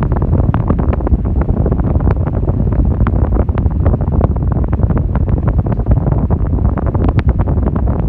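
Arno Ultra Silence Force floor fan running, its airflow blowing onto the microphone as a steady low wind rumble with frequent small irregular crackles.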